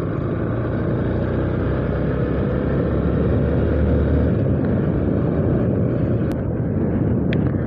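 Motorcycle riding along the road: a steady low engine drone under an even rushing noise, with two faint clicks near the end.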